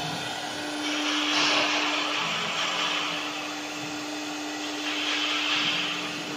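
AccTek AKM1325 CNC router spindle running with a steady whine while cutting a sheet on the bed, with a hissing cutting noise that swells about a second in and again about five seconds in.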